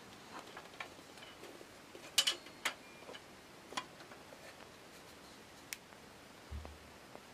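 Scattered light clicks and taps from a brass Optimus 1200M pressurized kerosene lantern being handled and turned, its body and fittings touched. The two loudest come close together a little after two seconds in, and there is a soft low bump near the end.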